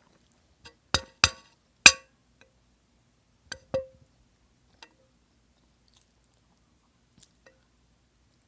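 A few sharp clacks and knocks of hard objects being handled. Three loud ones come close together about a second in, then a pair of fainter ones, and light taps later.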